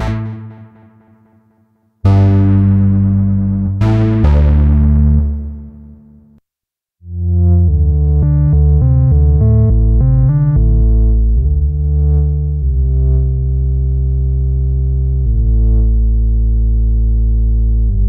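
Cherry Audio Quadra software synthesizer, an emulation of the ARP Quadra, playing factory presets. A chord is struck about two seconds in and fades away. After a brief silence a new patch starts with a quick run of notes, then settles into held low chords that change every few seconds.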